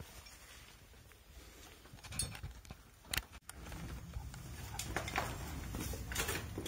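Faint, scattered scuffs and knocks of climbers' boots and gear against sandstone, with a low rumble rising about halfway through.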